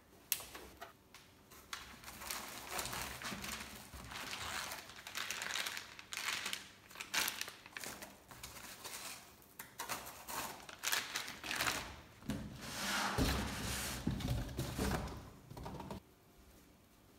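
Unpacking noises: cardboard box, foam packaging inserts and plastic-wrapped rack rails being handled, rustling and crinkling with many small knocks. There are heavier thumps near the end, and it stops about a second before the end.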